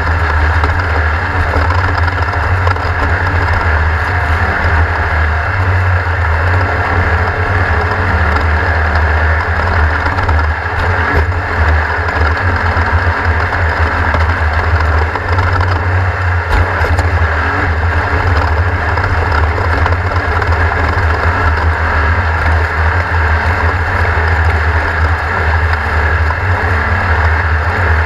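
Class 1600 off-road race car's engine running hard and steadily at racing speed, a loud continuous rumble with no let-up.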